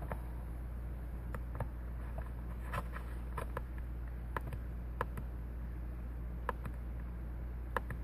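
Light clicks from the VR headset's controls as its app menu is scrolled, about a dozen at irregular intervals, over a steady low hum.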